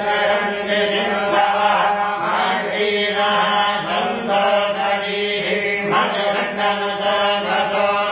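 Hindu devotional mantra chanting: voice chanting over a steady held drone.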